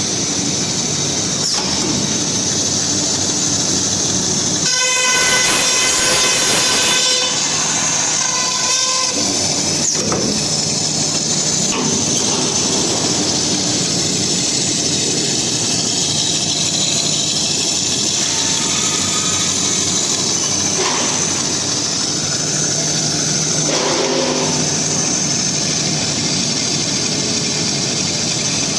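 Roll forming line with laser welding running: a steady loud machinery noise with a low hum. For about two seconds, starting about five seconds in, a pitched tone with overtones rises above it, and a few short knocks come later.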